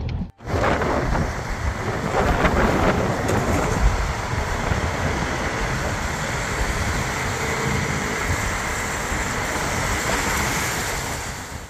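Loud, steady rushing noise with a heavy low rumble, the sound of wind buffeting the microphone. It starts abruptly after a brief gap just under half a second in.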